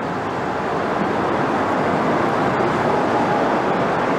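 EM2 (Class 77) electric locomotive 27000 running slowly past at close range, a steady mechanical running noise that grows louder as it draws level.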